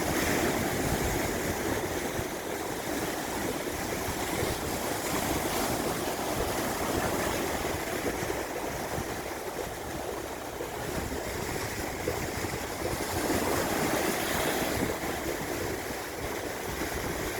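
Sea surf: waves breaking and washing in continuously, swelling louder for a few seconds at a time and then easing.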